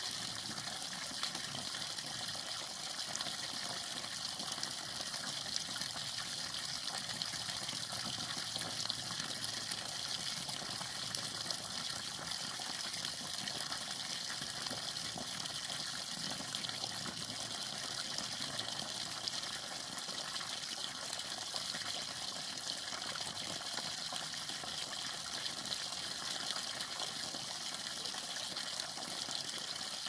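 A steady stream of water pouring from a plastic pipe and splashing onto rocks into a shallow muddy pool.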